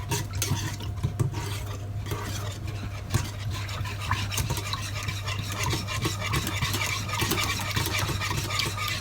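A spoon or whisk stirring milk, egg yolk and starch together to dissolve the starch: continuous quick scraping and ticking against the side of the container, over a steady low hum.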